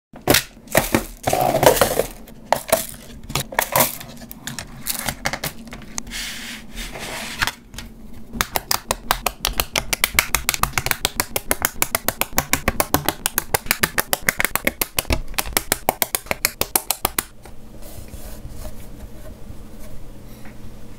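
Plastic LEGO pieces clattering and being clicked onto a studded baseplate. Irregular rattling comes first, then a long run of rapid, evenly spaced clicks, about five a second, as the small tiles are pressed on one after another. It ends with quieter handling.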